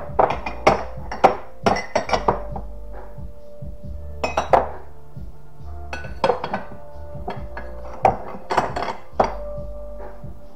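Dishes and glassware clinking and knocking together as they are handled, in irregular clusters of sharp, ringing strikes, over background music.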